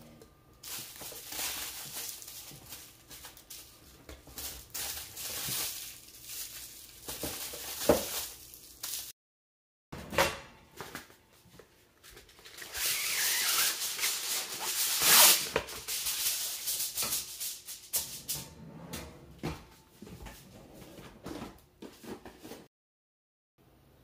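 Crinkling and rustling of non-stick aluminium cooking foil being handled, loudest in a dense stretch a little past the middle. Small kitchen clicks and knocks come through around it.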